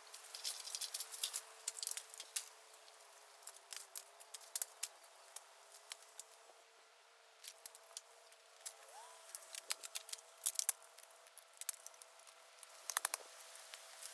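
Bamboo bonfire crackling, with sharp irregular pops and snaps, over a faint wavering whistle.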